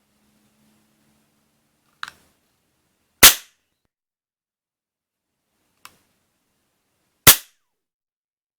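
Toy cap-gun revolver fired twice, about four seconds apart, each shot a sharp crack. A quieter click comes a little over a second before each shot.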